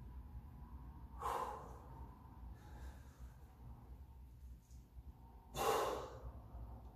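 A man exhaling hard twice, about a second in and again, louder, near the end, as he strains to hit and hold a flexed side-chest bodybuilding pose. A low steady hum lies underneath.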